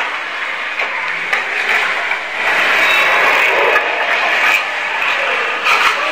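Metal spatula scraping and stirring jackfruit curry in a steel kadhai, with occasional clinks of metal on metal.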